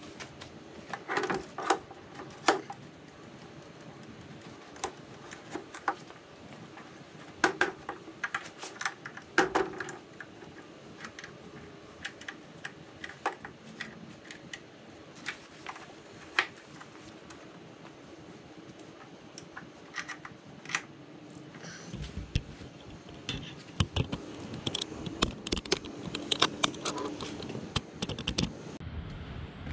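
Scattered light clicks and knocks from hands handling the parts and controls of a Clinton 3.5 outboard motor that is not running, coming more often in the last several seconds.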